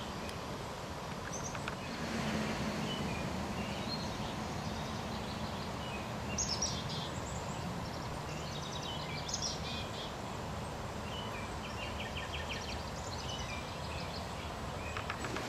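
Outdoor ambience: birds chirping and trilling now and then over a steady low background rumble.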